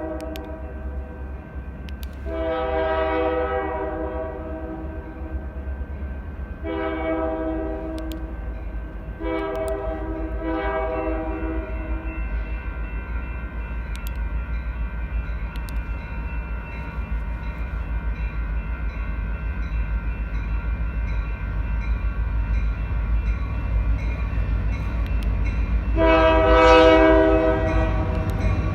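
Union Pacific diesel locomotive's multi-chime air horn sounding a series of blasts. A few come in the first twelve seconds, then there is a long gap, then a louder blast near the end. Under them runs the steady low rumble of the passing locomotive, which grows toward the end.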